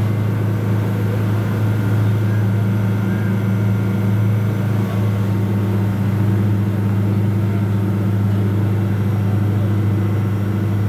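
An old boat's engine running steadily, a low even drone that holds a constant pitch.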